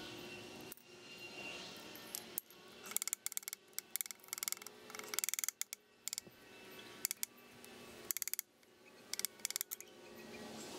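Small ball-peen hammer and pliers working a perforated metal starter screen against a steel vise: runs of quick, light metallic taps and clinks as the screen's inner flange is reshaped.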